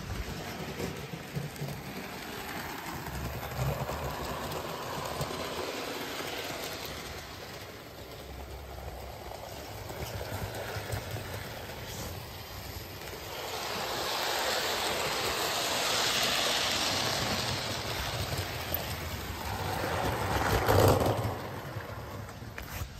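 Model Gordon locomotive running on its track with a breakdown crane in tow: a steady motor whirr and wheel rumble on the rails, swelling as it passes near about two-thirds of the way through.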